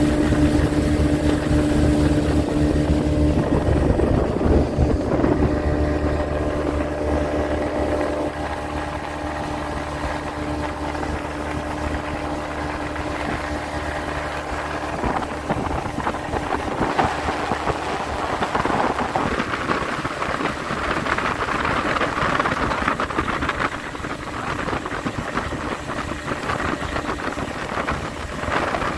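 Speedboat engine running at speed, with rushing water and spray against the hull and wind on the microphone. The engine's steady hum is plainest in the first few seconds; after that the rush of water and wind takes over.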